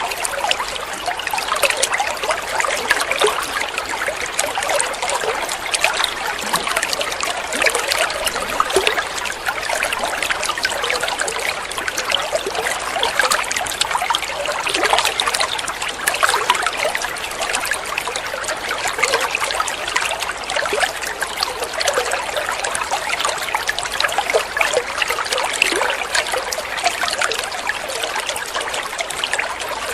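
Running water trickling and splashing steadily, an even patter with no letup and little low rumble.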